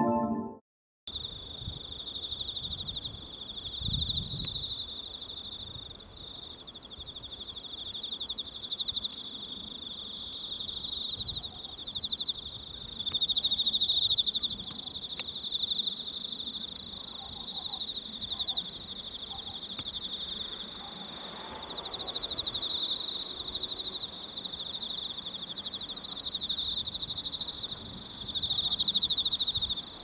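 Piano music dies away in the first second. Then a chorus of insects trills steadily, a high continuous chirring that swells and eases in loudness.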